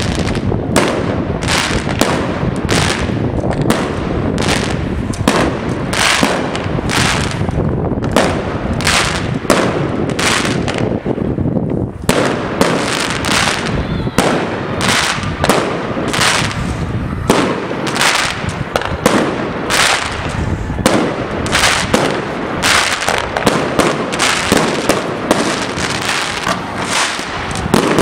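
Aerial fireworks display: shells launching and bursting overhead in a continuous, loud barrage of sharp bangs, about two a second.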